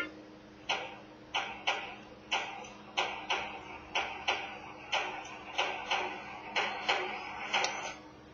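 Evenly spaced ticks, about three a second, from a sparse percussion passage of a music track playing through the QFX R-7 portable radio's small speaker, over a faint steady low tone.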